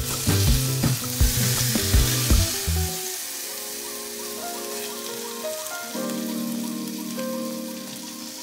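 Chicken breasts sizzling in oil in a frying pan as they are lifted out with tongs, over background music. The music's beat stops about three seconds in, and the sizzle fades with it, leaving softer held chords.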